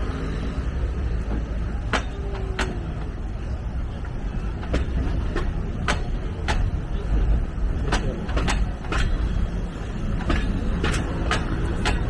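A narrow-gauge train hauled by the SL21 Shay-type steam locomotive running on the track: a steady low rumble with irregular sharp clacks.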